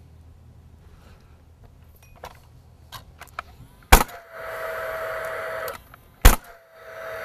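Nail gun firing twice into pressure-treated lumber, about two and a half seconds apart; each sharp shot is followed by a steady whir lasting a second or two. A few light clicks of handling come before the first shot.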